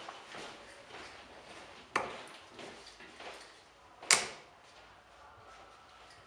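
Steel-tip darts thudding into a Bull's Focus II bristle dartboard, three sharp hits about two seconds apart, one per throw, the last right at the end.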